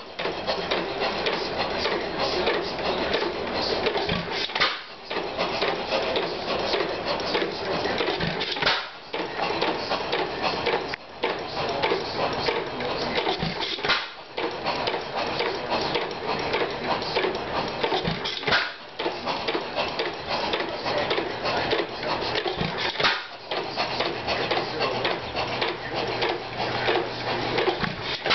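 A 3 hp Majestic single-cylinder, hopper-cooled hit-and-miss gas engine running with a busy mechanical clatter that dips briefly every few seconds. It is running on a home-made mixer and a makeshift fuel tank.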